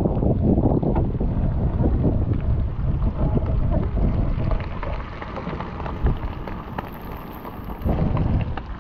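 Wind buffeting the microphone: a heavy, unsteady low rumble that eases for a couple of seconds past the middle, then picks up again.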